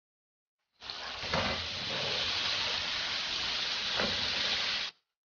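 Cornstarch-coated chicken pieces deep-frying in hot oil: a steady, even sizzle that starts abruptly just under a second in and cuts off just before the end, with two brief louder spatters.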